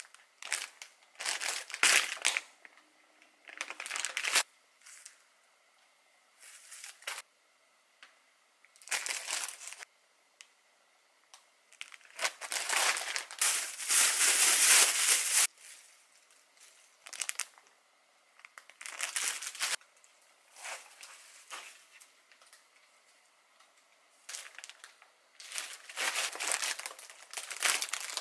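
Thin plastic grocery and produce bags crinkling and rustling in irregular bursts as groceries are lifted out and set down, with short quiet gaps between; the longest, loudest rustle comes about halfway through.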